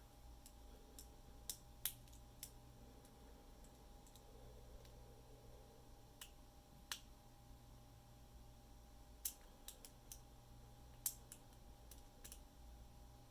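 Faint, irregular clicks of a lock pick or rake working the wafers inside a 10-wafer lockout padlock, about fifteen in all, some in quick clusters, over a faint steady hum.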